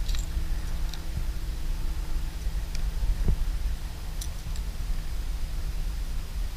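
Low, gusting wind rumble on the microphone, with a few faint, sharp clicks as a caught fish is handled and unhooked.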